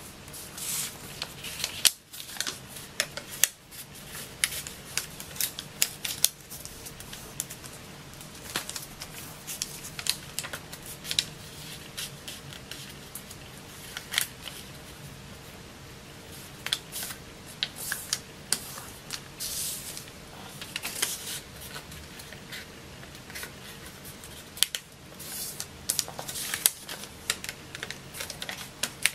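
Origami paper rustling and crackling as it is folded and creased by hand, in irregular crisp bursts, with fingers rubbing along the folds to press them flat.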